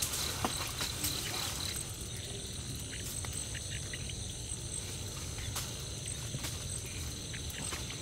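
Night insects trilling steadily in high, thin tones, with a pulsing chirp for the first two seconds or so, and a few faint scattered clicks and taps.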